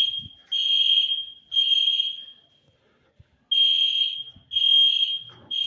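Hotel room fire alarm sounding loudly: a high-pitched beep repeated in groups of three with a pause between groups, the standard temporal-three evacuation signal. Here it is sounding for a test.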